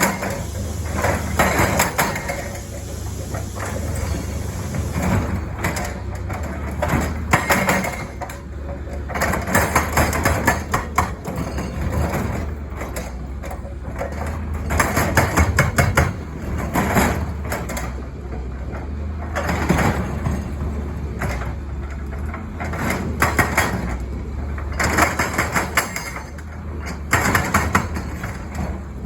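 Caterpillar 320 excavator's diesel engine running steadily under load while its hydraulic breaker hammers in repeated spells of rapid blows, each lasting a second or a few seconds, with short pauses between.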